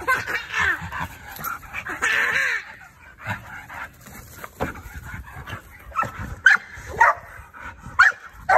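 Dog whining and yipping in the first few seconds, then a run of short, sharp barks about every half second near the end.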